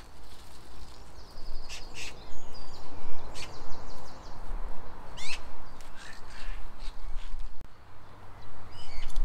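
Birds calling outdoors: high chirps and short trills, with a quick rising call about halfway through, over a steady background hum of the open air. A few light clicks and rustles mix in.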